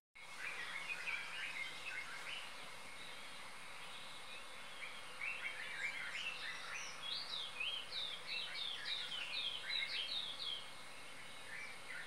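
Several small birds chirping and twittering in quick, high phrases over a faint steady outdoor hiss. The calls are busiest in the second half.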